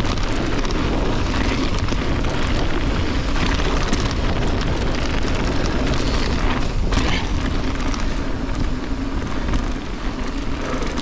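Mountain bike rolling downhill on a loose gravel track: tyres crunching and crackling over stones, the bike rattling, and wind buffeting the camera microphone.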